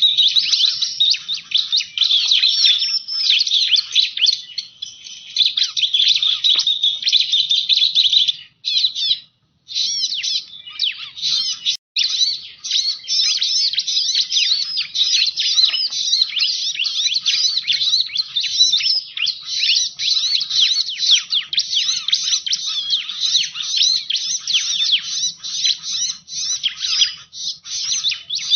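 Bar-winged prinia (ciblek) song played as a lure call: a dense run of rapid, high chirps and trills that cuts out twice for a moment about a third of the way in.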